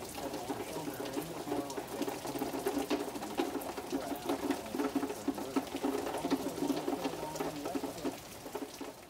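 Tropical-storm rain, with drops ticking irregularly on surfaces close to the microphone over a steady, busy mid-pitched background din.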